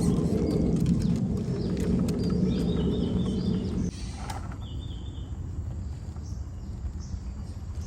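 1/10-scale RC rock crawler driving over quarry rock, with tyres and chassis clattering and crunching on stone for about four seconds before the noise drops off suddenly. Birds chirp throughout.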